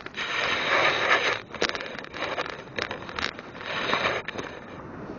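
Handling noise close to the microphone as the camera is moved about on sand: rustling and scraping bursts with several sharp knocks. It settles to a steady low hiss of wind and surf after about four and a half seconds.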